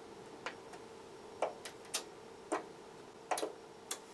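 Onkyo TX-NR5007 receiver's front-panel buttons clicking as they are pressed and held for a factory reset: about seven sharp, faint clicks at uneven spacing, over a faint steady hum.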